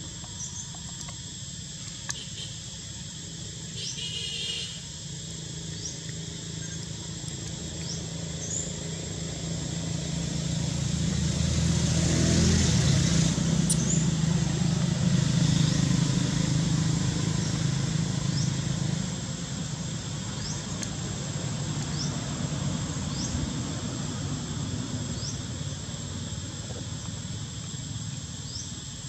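A motor vehicle passing: its engine rumble builds up, is loudest around the middle and then fades. Underneath, a steady high insect drone and scattered short chirps.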